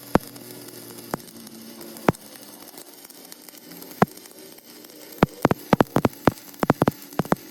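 Sharp, irregular knocks of tools striking during rear axle repair work, over a steady faint hum. There are a few single strikes in the first half, then a quick run of about a dozen in the last two or three seconds.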